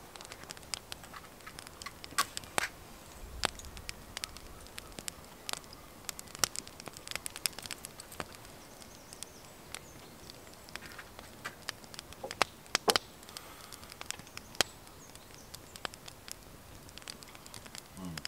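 Small dog eating meat scraps from a wooden bowl: irregular sharp clicks and smacks of chewing and licking, a few of them louder, around two seconds in and again near thirteen seconds.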